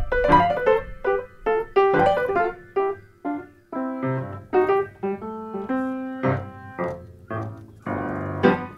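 Solo piano playing a ragtime tune, with separate melody notes and chords. The playing thins to a quieter, sparser passage around the middle, and a chord is held near the end.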